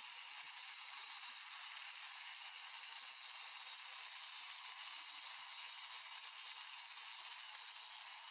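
Steady high hiss with no low end, holding at an even level.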